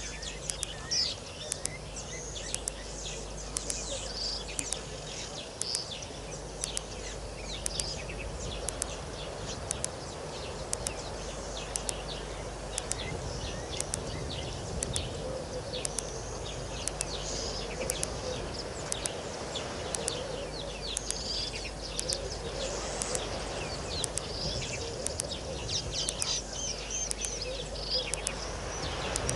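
Wild birds chirping and calling over and over, with frequent short, sharp ticks and a low steady hum underneath.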